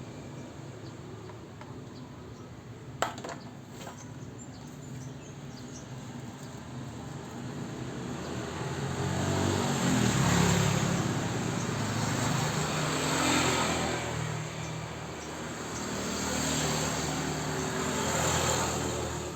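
Motor vehicles passing by, their engine sound swelling and fading several times, with a single sharp click about three seconds in.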